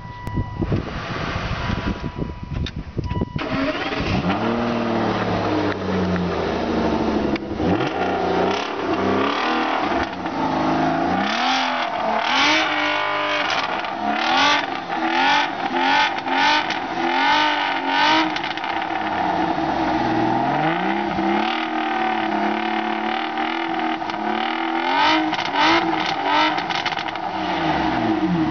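Aston Martin DB9's V12 engine starting about three and a half seconds in, then idling and being revved over and over, its pitch rising and falling with each rev, some slow and some in quick blips.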